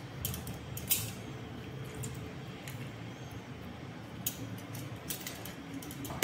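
A few light clicks and taps of a steel measuring spoon against a steel mixing bowl, the sharpest about a second in, over a low steady hum.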